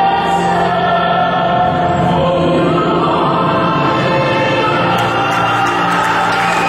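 Choral music: a choir singing long held notes over a steady accompaniment.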